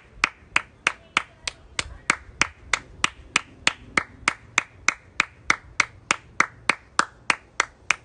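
One person clapping hands steadily, about three claps a second.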